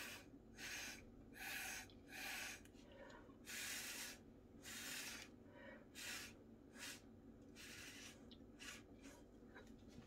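Short puffs of breath blown through a drinking straw, about ten faint hissy puffs, pushing wet acrylic pouring paint outward across the canvas.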